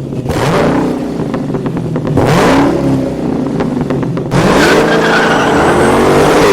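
A car engine revving hard, its pitch climbing three times, each climb starting with a burst of rushing noise.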